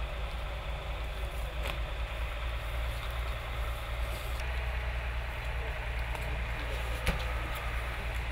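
An engine running steadily at idle: a constant low hum. There is a faint sharp click about two seconds in and a louder one about seven seconds in.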